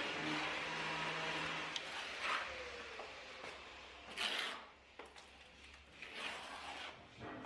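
Separate short scraping and rubbing strokes of a hand tool against a wall during plastering preparation, a few seconds apart, with a steady hum that stops about a second and a half in.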